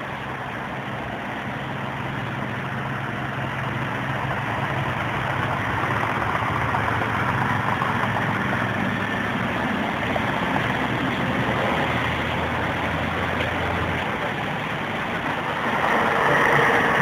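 Ikarus 280 articulated bus's diesel engine running with a steady low drone amid passing street traffic, growing louder and peaking as the bus passes close by near the end.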